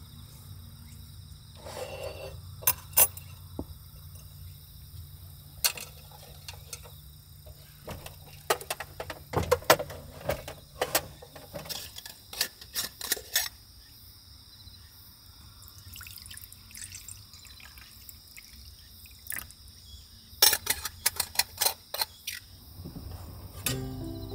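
Insects, crickets among them, calling steadily, with scattered sharp clicks and knocks in clusters and a low hum that fades out about halfway through.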